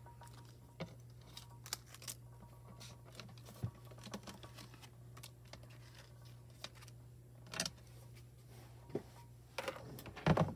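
Mini Minc heated foil laminator running with a steady low hum as a carrier-sheet sandwich with toner and foil is fed through its rollers. Light clicks and taps of the sheet and tools are heard over it, with a louder clatter near the end.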